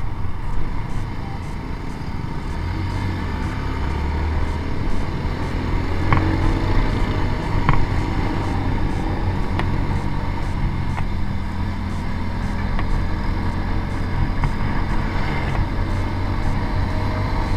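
Yamaha SZ-R's single-cylinder engine running steadily while riding, under wind and road noise, with a few short clicks about six, eight and ten seconds in.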